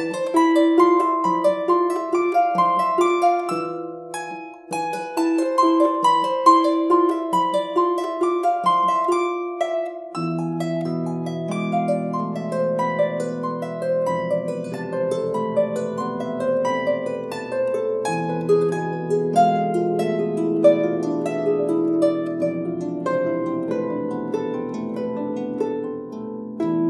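Solo lever harp played: plucked notes in a flowing melody over a plucked bass note about once a second. About ten seconds in, the low register fills in with ringing, overlapping bass notes under a denser run of notes.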